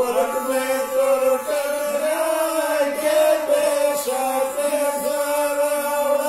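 Sarinda, the bowed Pashto folk fiddle, playing a sustained melodic line over a lower held note, entering with a quick upward slide.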